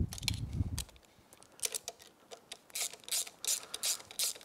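Hand ratchet clicking in quick short strokes, about three or four a second from about a second and a half in, as mounting bolts are tightened down. A low handling rumble comes in the first second.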